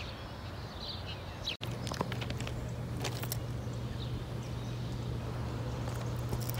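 Outdoor background with a few faint bird chirps. After a sudden cut, a steady low hum with a few light footsteps.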